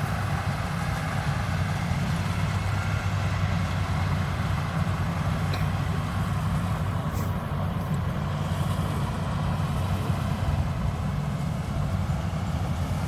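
Bimo combine harvester's engine running steadily at an even, low pitch.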